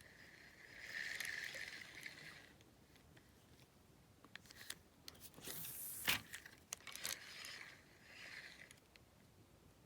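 Close crinkling, scraping and clicking noises, with one sharp click about six seconds in, over a faint steady high buzz that fades out after about two and a half seconds and returns briefly near the end.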